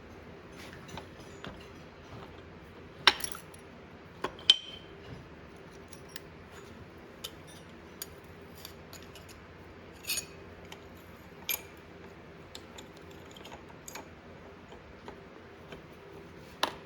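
Scattered metallic clinks and clicks of hand tools and transmission parts being handled, the loudest about three and four and a half seconds in, over a faint steady hum.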